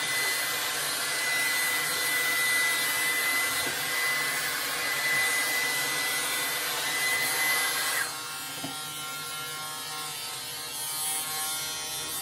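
A pet blow dryer blowing with a steady high whine until about eight seconds in, when it stops, leaving the steady buzz of an electric dog clipper cutting fur.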